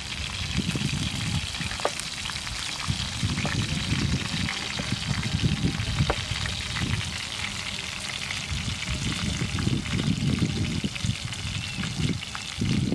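Meat-wrapped vegetable rolls sizzling in oil in a frying pan, with a few clicks of the spatula against the pan as they are turned. Wind buffets the microphone with an uneven low rumble.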